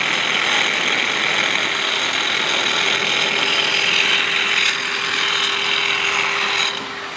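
Perfect Trac joint-cleaning machine, a handheld power tool with a blade, running steadily as it grinds out a joint in a concrete floor. The grinding cuts off near the end, leaving a quieter steady hum.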